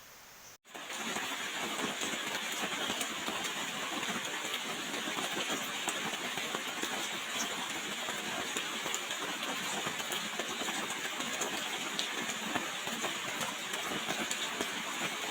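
Steady heavy rain: a dense hiss of drops with many small sharp hits, starting abruptly about half a second in.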